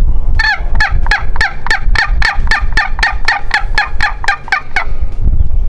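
Wild-turkey yelps on a box call: a long even run of about four yelps a second, each dropping in pitch, with a scratchy edge, over a low rumble. The yelping stops about a second before the end.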